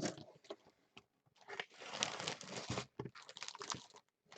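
Packaging crinkling as it is handled: a rustle of about a second and a half starting just past a second in, then scattered crackles.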